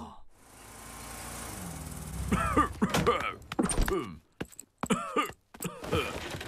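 A cartoon bear character, sick with a cough he has caught, coughing and groaning in a string of short, uneven coughs.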